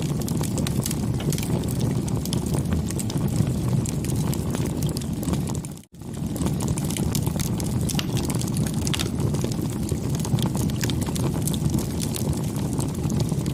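Wood fire burning: a steady low rushing noise with many small crackles and pops scattered through it. The sound drops out for a moment about six seconds in, then comes straight back.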